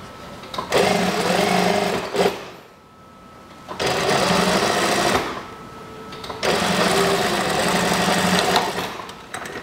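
Brother industrial sewing machine stitching in three runs: about a second and a half, another second and a half, and then nearly three seconds. Between the runs the machine stops and a faint steady hum carries on.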